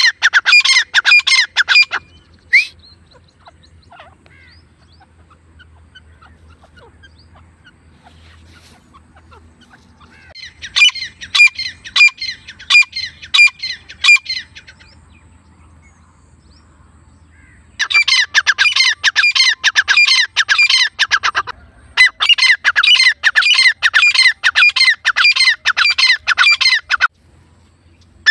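Grey francolins calling: loud runs of fast, repeated shrill notes in several bursts of a few seconds each, with pauses between them; the longest runs come in the second half.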